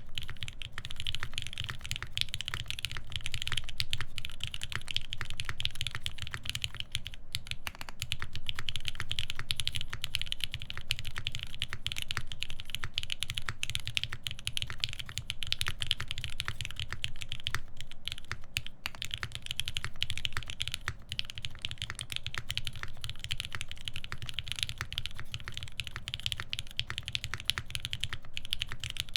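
Continuous fast typing on a SINGA Unikorn mechanical keyboard: Lavender switches lubed with Krytox 205g0, mounted on a full FR-4 plate, under GMK keycaps. It is a steady stream of key clacks with a low thock beneath them.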